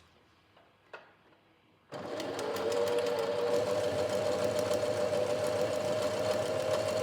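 A click about a second in, then a domestic sewing machine starts about two seconds in and runs steadily with an even hum. It is stitching the first side of a buttonhole with the buttonhole foot.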